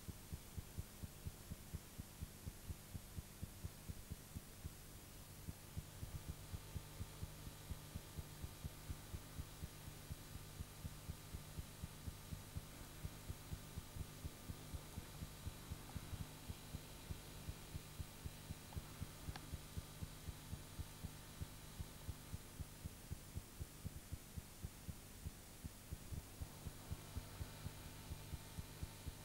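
A steady low electrical hum with soft, evenly spaced low thumps several times a second, a mechanical or recording noise under the picture.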